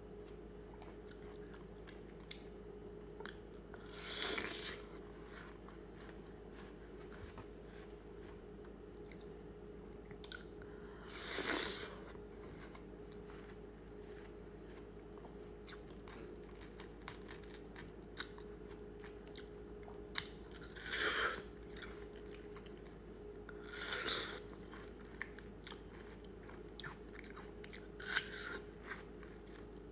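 Close-miked bites into and chewing of watermelon: about five short, wet, crunchy bites spread through the stretch, with soft chewing clicks between them. A faint steady hum sits underneath.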